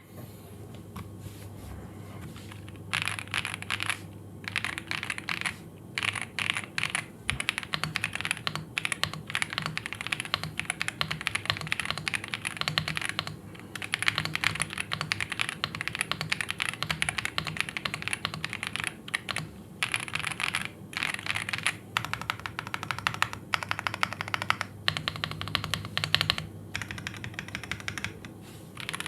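Yindiao Y95 mechanical keyboard being typed on quickly: dense runs of key clacks in bursts of a few seconds, split by short pauses, starting about three seconds in.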